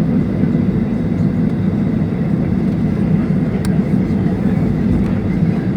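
Steady low drone of a Boeing 737-800 with its CFM56 turbofans running, heard from inside the cabin, with a single faint click a little past halfway.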